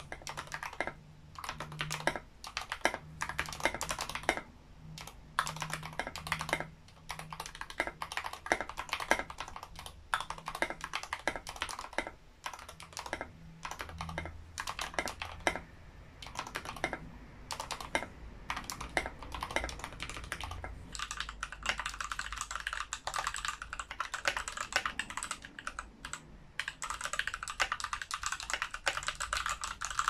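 Fast typing on an NK65 Entry Edition mechanical keyboard with lubed TKC Banana Split linear switches and SA keycaps. The keys clatter in quick runs of a few seconds, broken by short pauses.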